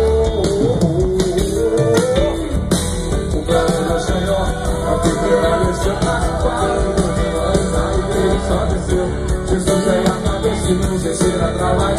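Live gospel rock band playing through the stage PA, with electric guitar over bass and drums, in a passage with little or no lead vocal.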